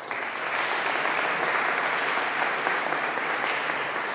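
Audience applauding: many hands clapping, starting abruptly and holding steady.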